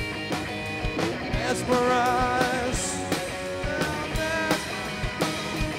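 Live indie rock band playing between sung lines: electric guitar and drum kit with a steady beat, with held, wavering melody notes over them.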